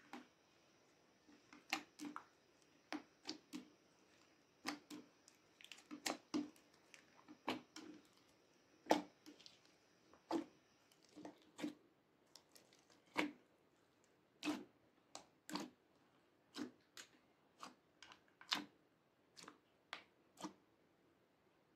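Clear slime mixed with coloured slimes being kneaded and squashed by hand, giving irregular short clicks and pops, one or two a second.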